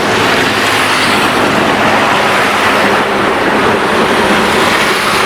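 Steady rushing road and wind noise of a vehicle on the move.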